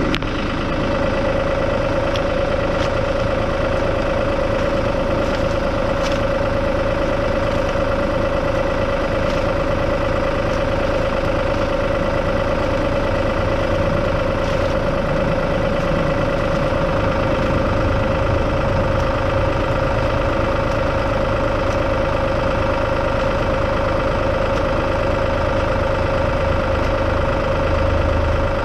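Farm vehicle engine, most likely a tractor, running steadily at an even speed for the whole stretch, with a constant droning tone.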